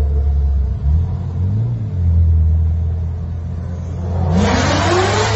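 Low steady V8 rumble from a Chevrolet Corvette, then about four seconds in the engine revs hard, its pitch climbing as the car accelerates.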